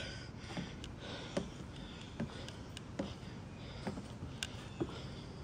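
Footsteps on the plank deck of a wooden footbridge, an even walking pace of about one step every 0.8 seconds.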